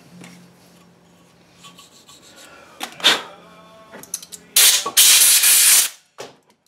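Scraping at the door hinge while it is worked on by hand: a short scrape about three seconds in, then a louder, longer one lasting about a second and a half near the end.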